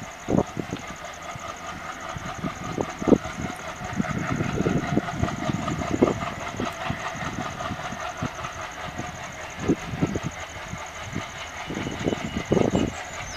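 Diesel locomotive engine working under load as it hauls a passenger train away from a standstill, with uneven low thumps through the rumble.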